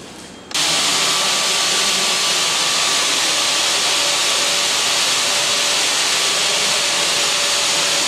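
A loud, steady rushing hiss that starts abruptly about half a second in, with a few faint steady tones under it.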